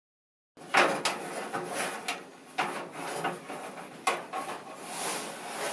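Kenmore HE2 dryer drum being turned by hand while a new belt feeds around it: a dry rubbing, scraping sound of the metal drum and belt, with sharp knocks about a second, two and a half and four seconds in.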